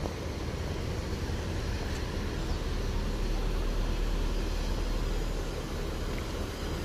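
Intercity coach's diesel engine running, a low rumble that swells about two seconds in and eases off near the end.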